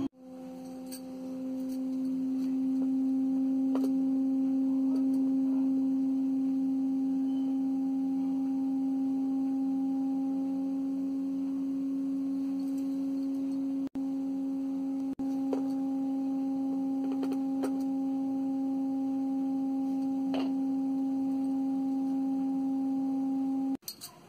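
A steady, pure drone tone, swelling in over the first two seconds, holding one pitch with two brief dropouts near the middle, and cutting off just before the end.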